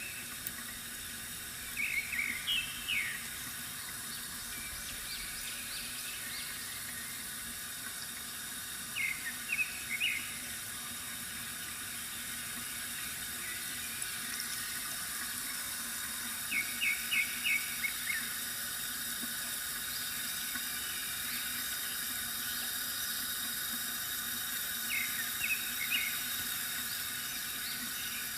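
Steady trickle of water from a bamboo fountain, with four short bursts of small-bird chirps spaced several seconds apart.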